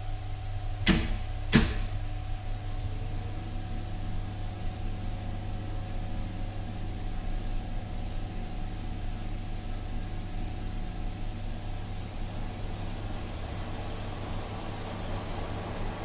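Two sharp switch clicks on the still's control panel in the first two seconds, over the still's agitator motor running with a steady electric hum.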